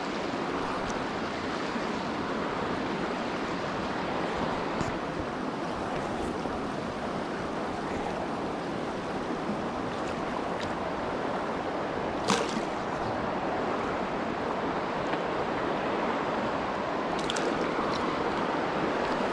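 Shallow river rushing over a rocky bed, a steady rush of water. A few short sharp clicks come through it, the loudest about twelve seconds in and several more near the end.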